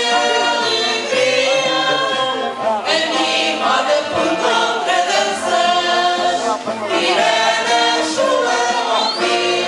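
A group of voices singing a Portuguese marcha popular over instrumental accompaniment, with a bass line stepping from note to note.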